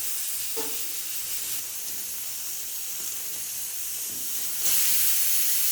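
Steady hissing of cooking on the stove, growing louder about four and a half seconds in.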